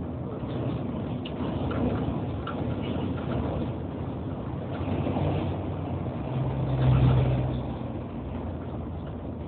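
Steady engine and road rumble heard from inside a moving road vehicle at highway speed, with a low hum that swells louder for about a second around seven seconds in.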